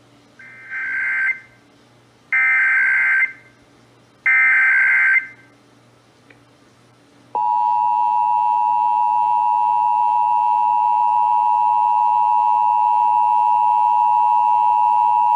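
Emergency Alert System SAME header: three bursts of digital data warble, each about a second long, about two seconds apart, opening a Required Monthly Test. About seven seconds in the steady EAS two-tone attention signal (853 and 960 Hz) starts.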